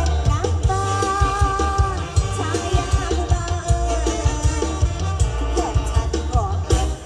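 Live mor lam band music: an ornamented melody line over a steady bass and drum-kit beat.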